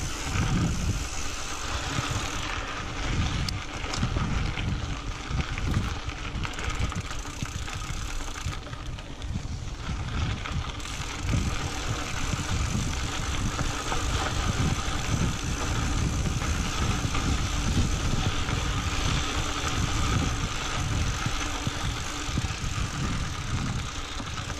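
Mountain bike rolling over a sandy, rocky dirt trail, its tyres and frame making a steady riding noise, with wind rumbling and buffeting on the action camera's microphone.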